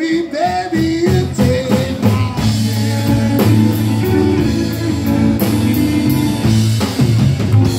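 Live rockabilly band playing: upright bass, drum kit, acoustic and hollow-body electric guitars and saxophone, with a steady bass line under a melodic lead.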